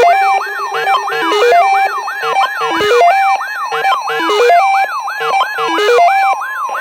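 Electronic emergency alert alarms sounding together. A fast rising-and-falling siren sweep repeats about three times a second over a repeating stepped electronic melody.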